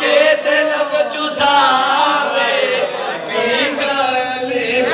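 Men's voices chanting a devotional recitation into a microphone, the pitch rising and falling continuously.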